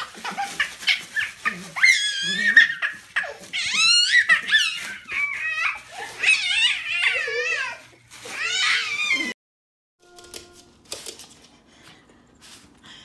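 A baby laughing and squealing in high-pitched, wavering bursts, which cut off suddenly about nine seconds in; after that only faint clicks.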